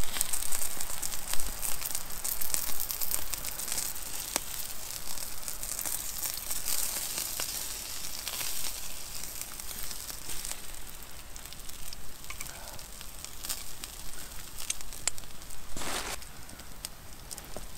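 Campfire crackling and sizzling: a dense run of fine pops and ticks over a steady hiss from the coals, with a brief rush of noise near the end.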